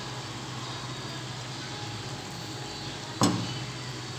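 Pan of fish in tomato-and-egg sauce simmering on the stove with a steady hiss over a low hum, and one sharp knock about three seconds in.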